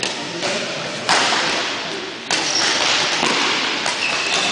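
Badminton rally: racket strikes on the shuttlecock, two sharp hits about a second apart near the middle, each echoing in the large hall. Short high squeaks follow later.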